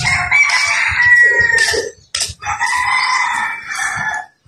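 Rooster crowing twice, two long crows one right after the other.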